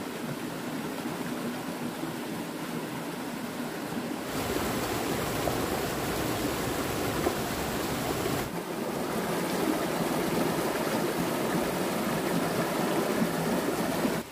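Steady rush of running stream water, a constant hiss with no distinct events, louder from about four seconds in.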